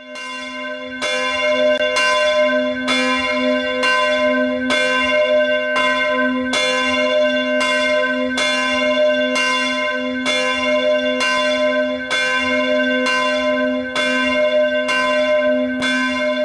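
A single church bell ringing, struck at an even pace of about once a second, its low hum carrying on between the strokes.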